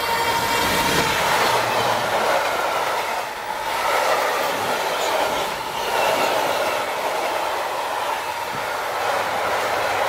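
Long electric-hauled freight train passing close by: the wagons' wheels rumble and clatter over the rails in a steady rush, dipping briefly about three seconds in.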